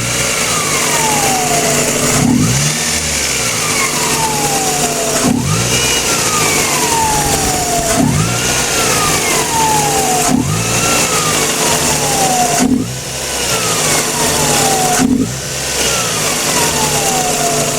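Toyota ist's 1.5-litre engine blipped about seven times, with a whine from the alternator rising quickly and falling slowly with each rev. The whine is the sign of a failing alternator, with a worn bearing and a faulty IC regulator.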